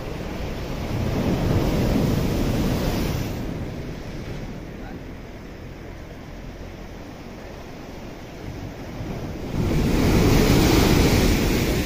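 Sea waves crashing against a seawall of concrete armour blocks. There are two big surges of surf, one about a second in and a louder one near the end as a wave bursts into spray over the blocks, with softer wash between them.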